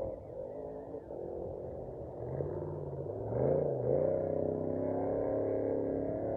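Off-road race vehicle engine running, its pitch rising and falling twice a few seconds in, then holding a steadier, slightly louder note.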